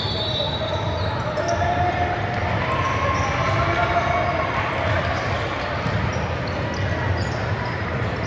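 Basketball game in a gym: a ball bouncing on the court amid indistinct voices from players and spectators.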